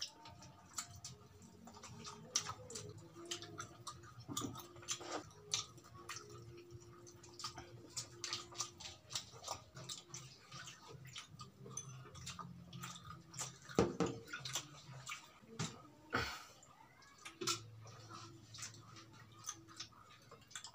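Close-miked eating sounds: chewing, lip-smacking and the small wet clicks of fingers pulling apart fried chicken, a steady run of quick clicks and smacks. About ten seconds in, juice is poured from a plastic bottle into a glass.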